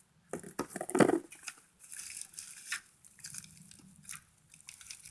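Unpacking noise: bike parts and protective packaging being handled and pulled apart, a string of irregular rustles, scrapes and light knocks, the loudest about a second in.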